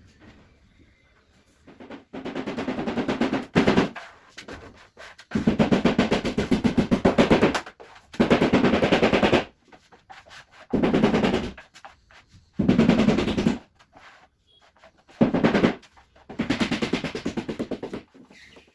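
A woodworking power tool run in about seven short bursts of a second or two, each a fast, even rattle, with brief pauses between.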